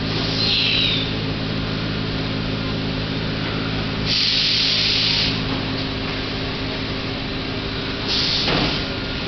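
Steady mechanical hum with three short hisses: a brief one near the start, a louder one lasting about a second around four seconds in, and a shorter one near the end.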